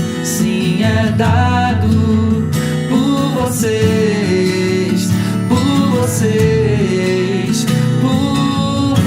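Christian worship song: acoustic guitar accompaniment under a gliding melody line that moves in phrases of a second or two.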